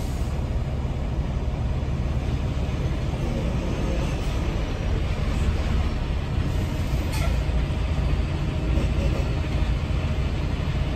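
Semi truck's diesel engine and cab rumbling steadily, with a short hiss about seven seconds in.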